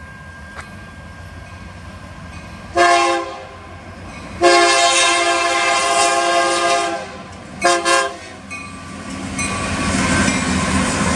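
EMD SD70M locomotive's multi-note air horn sounding for a grade crossing: a short blast about three seconds in, a long blast, then two quick toots. From about eight seconds in the rumble of the locomotives' diesel engines and wheels on the rail grows steadily louder as the train comes past.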